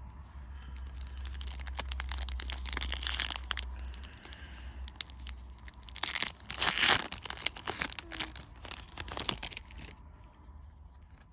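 Foil trading-card booster pack being torn open and crinkled in the hands, with the loudest rips about six to seven seconds in; the crinkling stops about ten seconds in.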